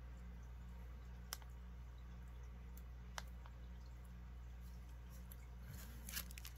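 Quiet room with a steady low hum and two faint isolated clicks. Near the end comes a light rustle as a hand picks up a cellophane-wrapped trading card.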